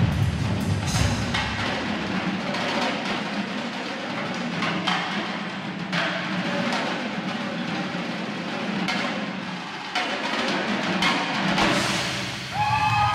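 Indoor drumline percussion ensemble playing: marching drums together with a front ensemble of marimbas and other mallet keyboards, dense drumming with several sharp accented hits.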